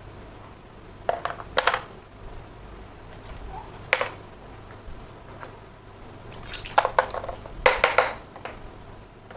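Small toy kitchen pieces being handled: a few groups of sharp clicks and light clatters, the busiest near the end.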